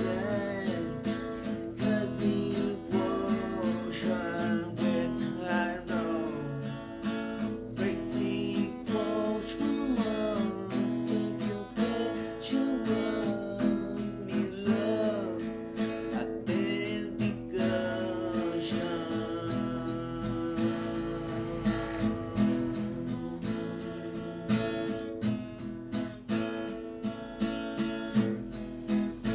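Music: strummed acoustic guitar chords, with a melody line above them that bends in pitch.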